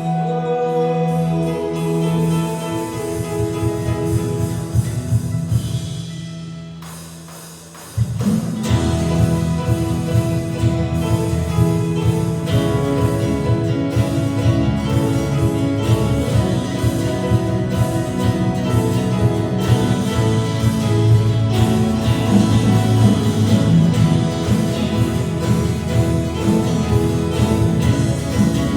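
Worship band playing live during a sound check: held sustained chords fade away about seven seconds in, then the full band comes in suddenly and plays on with a steady beat.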